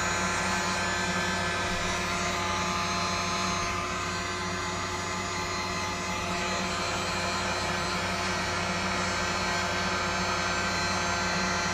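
Electric heat gun running, a steady blowing whir from its fan motor.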